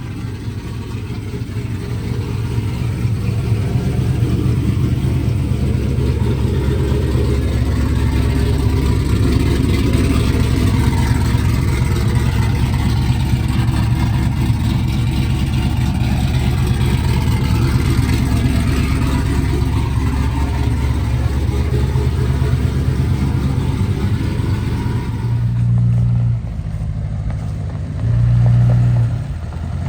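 Pickup truck engine running steadily after an oil change, building up over the first several seconds and then holding. About 25 seconds in, the sound changes abruptly to a couple of deep, steady low notes.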